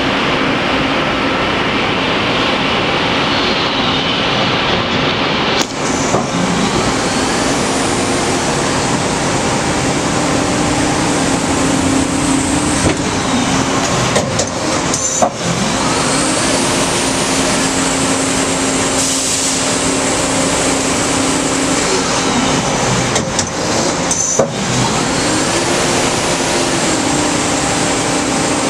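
1998 Mori Seiki SL-25B CNC lathe running under power: steady, loud machine noise with a hum that rises and falls in pitch a few times, as the spindle speeds up and slows down, and a few sharp clunks.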